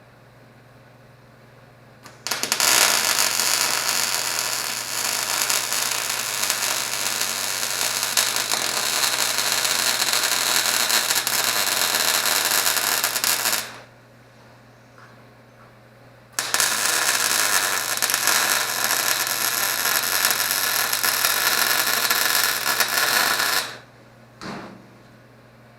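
MIG welder running two long weld beads on sheet-steel body and floor panels, a steady dense arc crackle that starts and stops abruptly each time, with a brief blip near the end.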